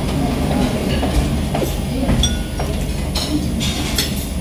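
Dining-room background with a steady low hum, and a few light clinks of cutlery and crockery.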